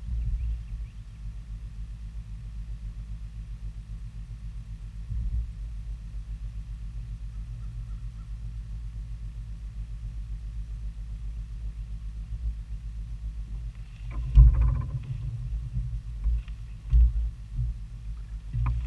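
Steady low hum of the boat carried through the hull into the camera mount. About fourteen seconds in it gives way to a run of heavy thumps and knocks on the boat as a rod is pulled from its holder with a fish on.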